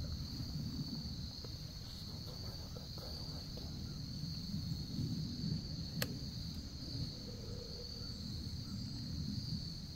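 Steady high-pitched chorus of insects in the woods, an unbroken shrill tone, over a low rumble, with one sharp click about six seconds in.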